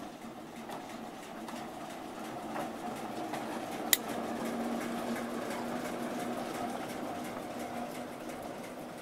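Diesel engine of the BR diesel shunting locomotive 12099 running with a steady drone as it passes slowly by, growing louder to the middle and then easing off. A single sharp click about four seconds in.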